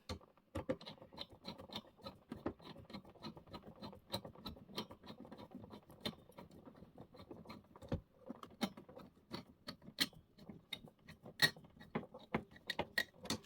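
Screwdriver turning the CPU cooler's mounting screws into the motherboard bracket: a run of small clicks and scratches, fairly regular at first, then irregular, with a few sharper clicks near the end.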